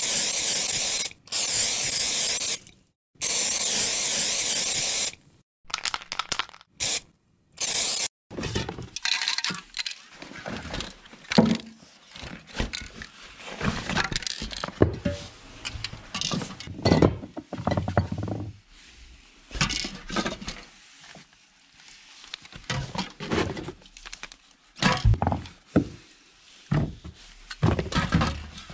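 Aerosol spray-paint hiss in several bursts, the longest about three seconds. Then irregular knocks, clinks and rustles as spray-paint cans and a bag are handled at a wooden cabinet.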